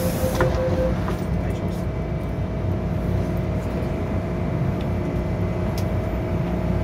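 MTR M-Train door-closing warning beeps end as the saloon doors shut with a knock about half a second in, cutting off most of the platform hiss. The train's electrical equipment then hums steadily, with a faint high whine, inside the car.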